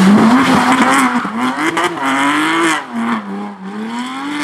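Porsche Cayman rally car's flat-six engine revving up and down through a tight turn, its pitch rising and falling several times, with the tyres squealing as the car slides. It gets quieter about three seconds in.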